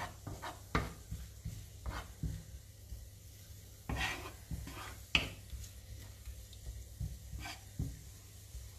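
Wooden spatula stirring chopped leeks in a nonstick frying pan, irregular scraping strokes with the strongest about four and five seconds in, over a faint sizzle of the leeks frying in butter and oil.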